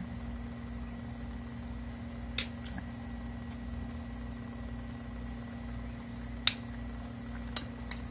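Metal spoon clinking against a plate three times, about two and a half seconds in, at six and a half seconds and near the end, over a steady low hum.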